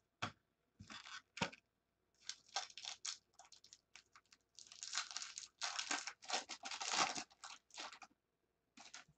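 Foil wrapper of a baseball card pack being torn open and crinkled, in a run of short rustling bursts that are densest and loudest around the middle.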